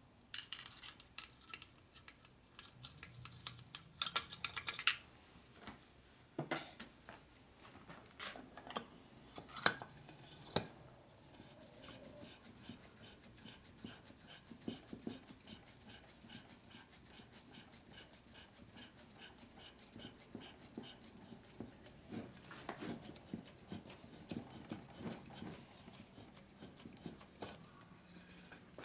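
Adjustable hand reamer being turned by hand through a bushing bore in a Harley-Davidson Evolution engine case: a fast, fine ticking and scraping of metal on metal as the blades cut. There are several sharp metal clicks and knocks in the first ten seconds as the reamer and wrench are fitted.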